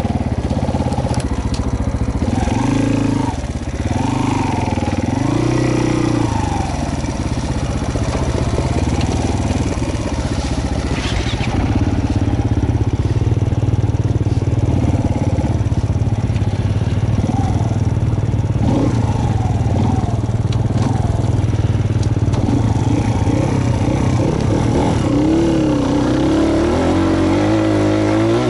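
Off-road motorcycle engine running under load. It revs up and down several times in the first six seconds, then holds a steady, lower pitch, and revs up again near the end.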